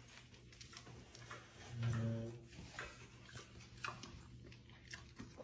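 Pet pig's hooves clicking faintly on a tile floor as it walks, with one short, low grunt about two seconds in.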